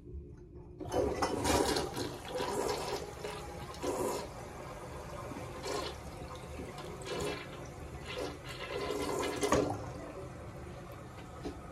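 American Standard Cadet 1.6-gallon toilet flushing a bowl packed with toilet paper: the water rush starts about a second in, goes in uneven surges, then tapers off. The flush is too weak to clear the paper, and a clump is left in the bowl.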